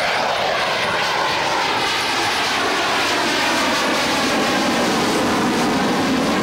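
F-16 fighter's jet engine, loud and steady as the jet flies past, its pitch falling as it moves away.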